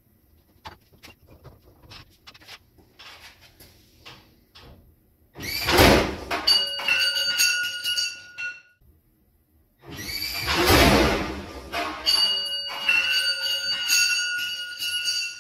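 Light clinks of tools, then a heavy metal crash with clanging and a long metallic ring, heard twice a few seconds apart: the stripped Camaro drag car dropping off the floor jack.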